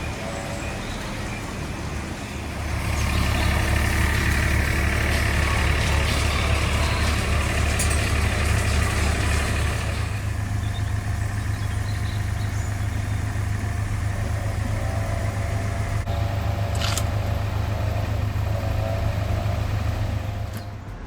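Heavy diesel engine running steadily, starting up about two and a half seconds in and stopping shortly before the end, with a higher hiss over it for the first several seconds.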